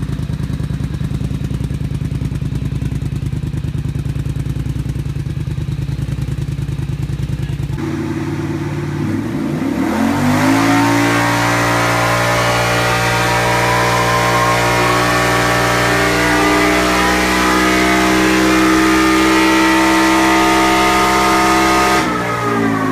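Polaris Sportsman XP ATV engine breathing through a Barker's slip-on exhaust: idling steadily, then revved up about eight seconds in and held at full throttle for a dyno pull of about twelve seconds, with a whine climbing in pitch over the steady engine note. The revs drop back near the end.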